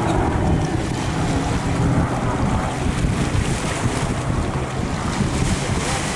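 Piston-engined warbird running as it flies past, with wind buffeting the microphone.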